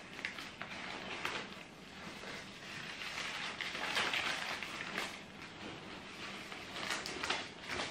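Paper wrapping rustling and crinkling irregularly as hands pull it open.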